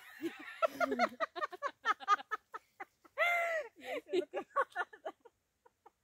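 Two women laughing hard in quick, broken bursts, with one drawn-out high-pitched note of laughter about three seconds in.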